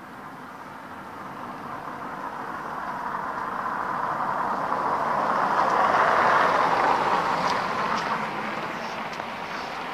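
A vehicle driving past: a steady road hiss that swells gradually to its loudest about six seconds in, then fades away.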